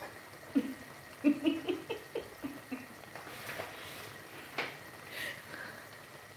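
Tomato sauce simmering in a pot on a gas hob, faintly bubbling, with a few soft, low vocal sounds between about half a second and two seconds in and a single small click a little before five seconds.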